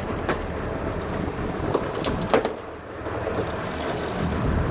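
Boat engine running steadily with wind on the microphone, with a few sharp clicks or knocks about two seconds in and near the end.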